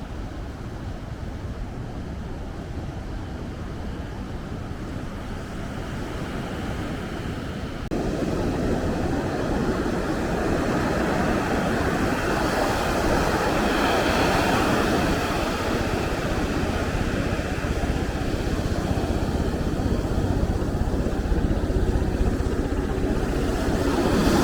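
Steady rush of ocean surf with wind on the microphone, growing louder about eight seconds in.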